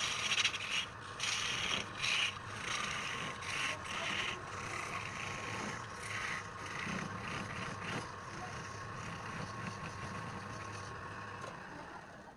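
Wood lathe running with a steady hum and faint whine, while something scrapes against the spinning wood in repeated short strokes for the first eight seconds, then more evenly. The motor sound stops near the end.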